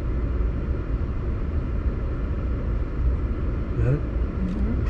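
Road and engine noise of a moving car heard from inside the cabin: a steady low rumble.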